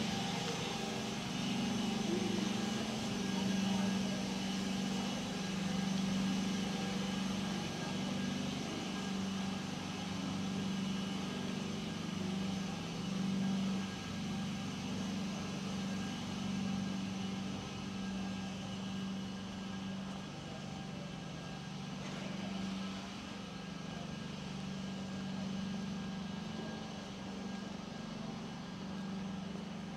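City street ambience: a steady low hum of motor traffic, with no sudden events.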